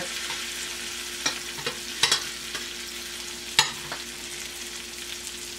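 Salmon fillet frying in hot butter in a stainless steel pan, a steady sizzle, while a metal spoon ladles the butter over the fish, clinking sharply against the pan three times.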